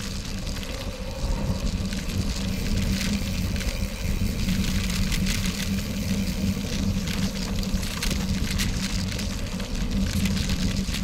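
Riding noise from a gravel bike on a packed gravel road at about 20 mph: wind rushing over a bike-mounted camera and tyres rolling, with a steady low hum and scattered small crunches and clicks.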